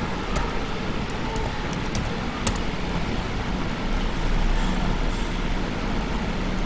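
Steady low rumble and hiss of background room noise, with a few faint sharp clicks of a computer mouse and keyboard in the first half.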